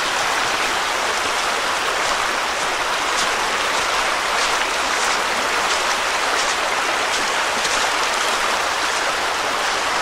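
A creek running over rocks: a steady, even rush of water.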